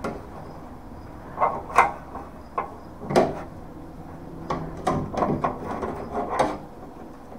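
Locking-plier clamps being handled and snapped tight on a sheet-metal patch panel: a series of sharp metal clicks and clanks, with a quicker run of them in the second half.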